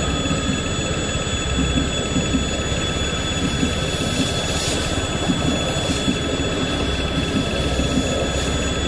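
Passenger train coaches rolling past a level crossing: a steady rumble of steel wheels on the rails with an uneven clatter, over a steady high tone.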